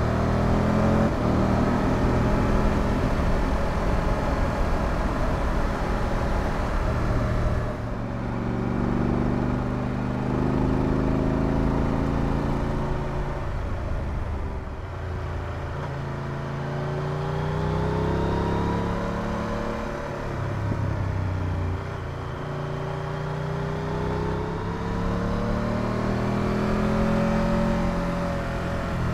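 Triumph Tiger 1200 Rally Pro's three-cylinder engine running on the move, its pitch rising and falling as the throttle is opened and closed, over steady wind and road noise. The sound changes abruptly twice, about eight seconds in and again about two-thirds through.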